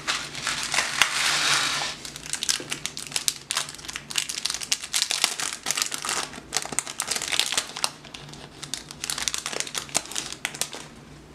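Clear plastic bag crinkling by hand as a round camera lens filter is unwrapped from it, with a dense run of crackles loudest in the first two seconds and sparser crinkles after that.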